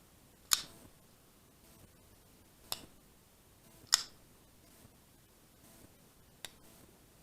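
Real Steel S6 folding knife being flipped open and shut, four sharp metallic clicks as the blade snaps out and locks or closes; the action is pretty good out of the box.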